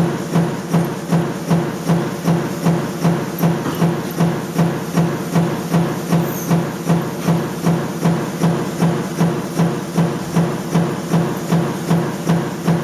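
Rotary metal-forming machine turning a drawn metal cylinder on its rotating head. It makes a steady hum with a regular knock about two and a half times a second, once per turn.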